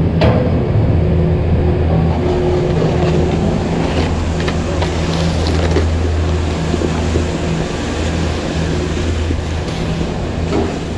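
Chairlift drive machinery at the top lift station humming steadily in a deep, even drone. Snowboards scrape on the snow over it about halfway through.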